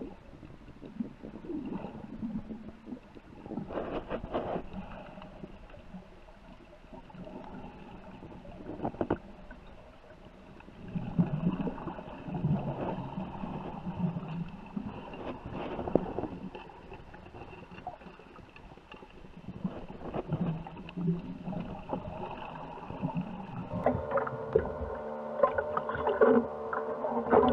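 Muffled underwater sound heard through a waterproof camera housing: water churning and bubbling, with scattered knocks and clicks and a faint steady high whine. Near the end the camera breaks the surface and a steady pitched hum comes in.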